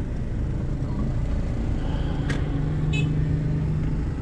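Mercedes-Benz car driving slowly, its engine and tyre rumble heard from inside the cabin with a steady hum. A sharp click about two seconds in and a short high chirp about a second later.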